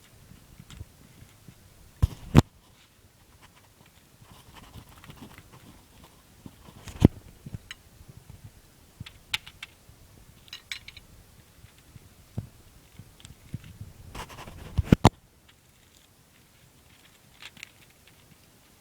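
Scattered sharp knocks and clicks, a few of them loud (about two seconds in, about seven seconds in, and a double knock near the end), with faint rustling between.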